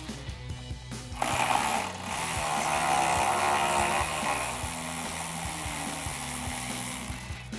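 Cordless electric ratchet backing out a 10 mm bolt: a few short clicks, then the motor runs steadily for about three seconds from about a second in.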